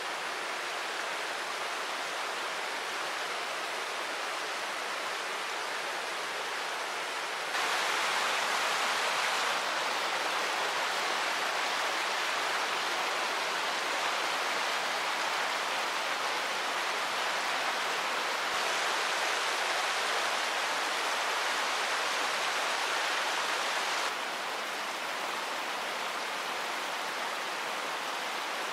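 Rushing river water, a steady hiss of flowing water with no clicks or voices. It steps up abruptly in loudness about a quarter of the way in and drops back near the end.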